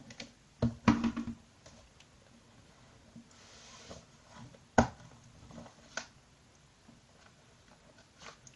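Handling of a white cardboard phone box and its inner tray on a table: scattered knocks and taps, the sharpest just past halfway, with a brief sliding rub of cardboard a little before it.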